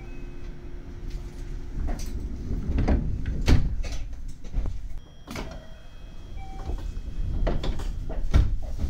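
Electric train's sliding passenger doors closing over a low rumble, shutting with a loud thud about three and a half seconds in. Further knocks and clunks follow as the train stands and begins to move.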